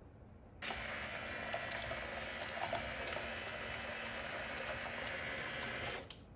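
A thin stream of water from a duck-shaped bath toy splashing steadily into an empty plastic basin, starting about half a second in and cutting off shortly before the end, with a faint steady hum underneath.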